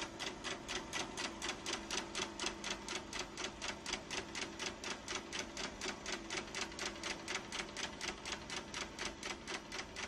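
Film projector running: a fast, even clicking of the film mechanism over a steady motor hum.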